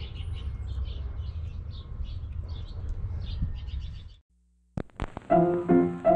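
Small birds chirping over a steady low rumble. It cuts off about four seconds in, and after a few clicks music begins.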